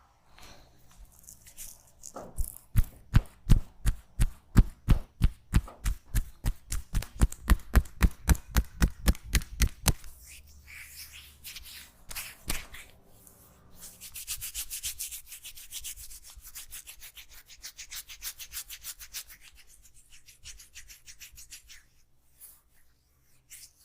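Hand massage sounds: a steady run of percussive hand strikes on the body, about four a second, for several seconds. After a pause comes fast, hissy rubbing of hands over hair and skin.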